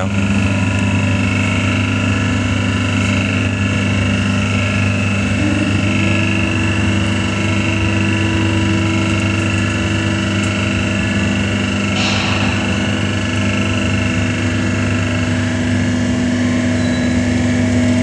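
Vertical cardboard waste baler's electric hydraulic pump running steadily through an automatic cycle, the pressing plate driving down to compress cardboard at about 4 tons. A higher steady tone joins about six seconds in, and a short noisy burst sounds about twelve seconds in.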